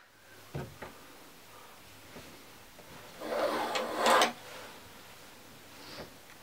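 Handling noises in a small room: a short knock about half a second in, then about a second of scraping and rustling.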